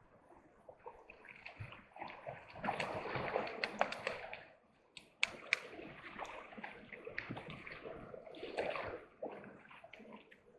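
Water splashing and sloshing in uneven bursts, with a few sharp clicks among them.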